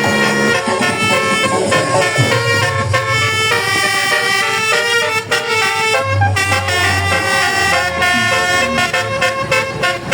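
Bus basuri musical air horn (telolet) playing a quick melody of sustained multi-tone notes. A deep bass note swells in twice underneath.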